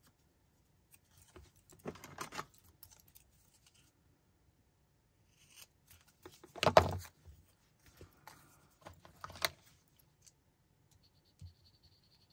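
Handling small paper pieces and scissors on a cutting mat: scattered rustles, scrapes and clicks as a small paper strip is trimmed with small scissors, with a louder knock about two-thirds of the way through.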